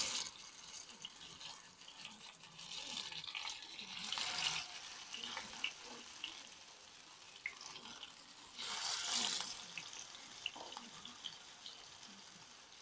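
Masala-coated chicken pieces sizzling in hot oil in a frying pan, with small pops and crackles. The sizzle swells three times as more pieces are laid into the oil.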